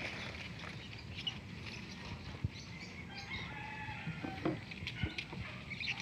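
Water hyacinth being pulled out of a canal by hand, with rustling and a few soft knocks of the wet stems, and a bird calling several short times about halfway through.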